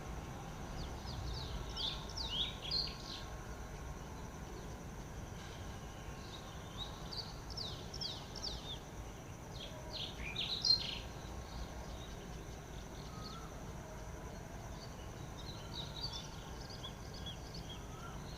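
Wild birds chirping in four short bursts of quick, downward-sweeping notes, over a steady low rumble and a faint steady high hiss.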